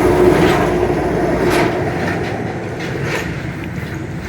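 A motor vehicle passing by, its engine hum and road noise slowly fading away, with a couple of brief clicks.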